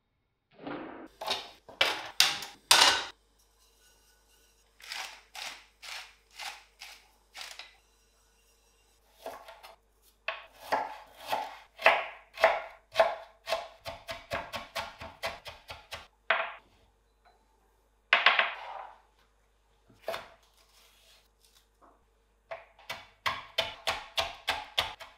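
Chef's knife slicing ginger and green chili pepper on a plastic cutting board: sharp knife strikes in runs with pauses between them. Near the end it becomes quick, even chopping at about four strokes a second.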